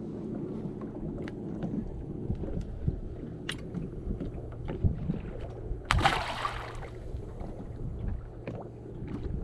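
Sounds aboard a bass boat on the water: a low steady hum with scattered small clicks and knocks, and a short rush of hiss about six seconds in.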